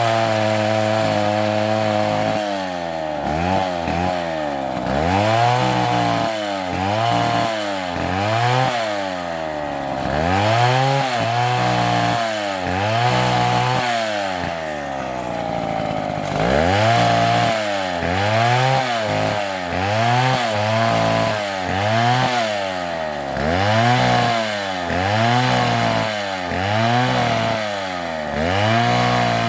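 Two-stroke chainsaw cutting wood. It holds a steady high speed for about two seconds, then its engine pitch repeatedly dips and rises, about once a second, as the chain bogs in the cut and frees.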